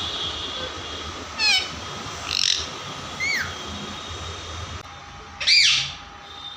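Pet parrot giving four short, arching squawks, the last and loudest near the end.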